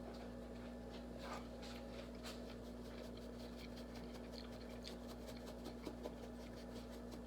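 Faint light clicks and taps of kitchen utensils against a dish, scattered through, over a steady low hum.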